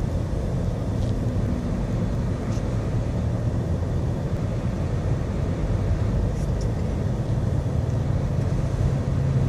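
Steady low engine rumble heard from inside a car's cabin as it moves slowly through a flooded road beside a large truck.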